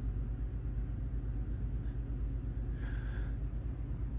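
A steady low background hum, with one short breath drawn in about three seconds in as a sneeze builds up.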